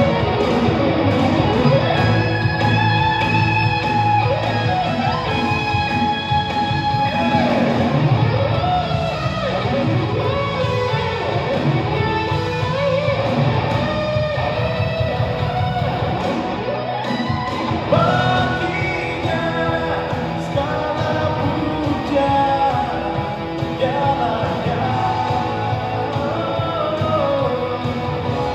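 Live band playing a worship song, with guitar to the fore over a steady bass line and gliding melody lines.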